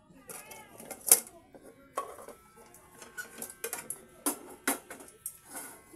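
A metal wok and cookware being handled and set on the stove: a series of sharp clanks and knocks, about six loud ones spread over a few seconds.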